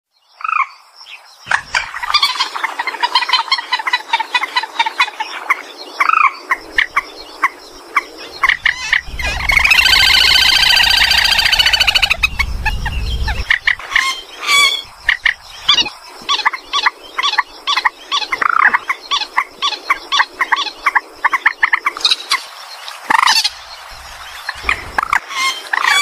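Calls of rail-family waterbirds, purple swamphen and common moorhen, in a bird-lure recording: a steady run of short, sharp clucks and squawks, with one long, loud, harsh call about nine seconds in that lasts some three seconds.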